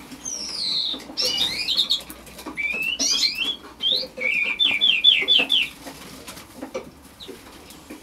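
Eurasian skylark singing in short bursts: a falling whistle, quick warbled phrases, then a run of about six rapid repeated notes just past the middle, dying away over the last two seconds.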